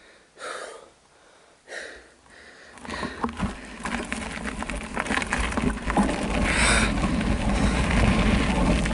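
A few short puffs of the rider's breathing. Then, from about three seconds in, a rising rumble and rattle of a Specialized Rockhopper Comp mountain bike's tyres rolling over loose gravel and rock, with the bike clattering as it picks up speed downhill.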